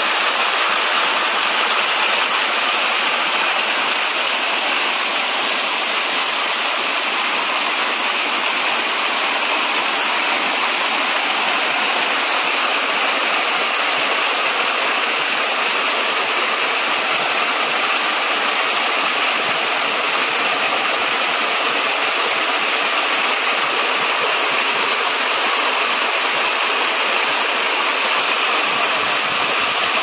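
Small waterfall splashing down over rocks into a pool: a steady, even rush of falling water.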